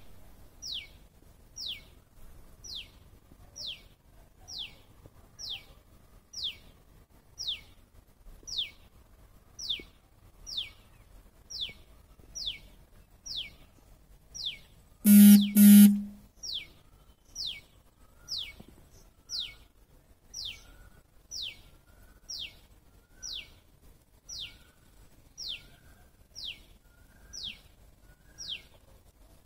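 Indian palm squirrel calling: a sharp, high chirp that falls in pitch, repeated steadily about once a second. About halfway through, two loud horn-like beeps cut in.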